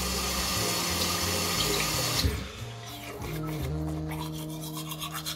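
Water running steadily from a tap, shut off abruptly about two seconds in.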